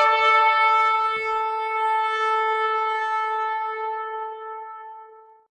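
Shofar blowing one long held note that fades away near the end.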